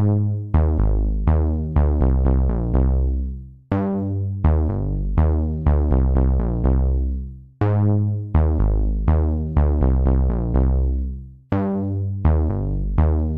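Electronic background music: synthesizer notes over heavy bass and a drum machine, each note struck and fading quickly, in a phrase that repeats about every four seconds.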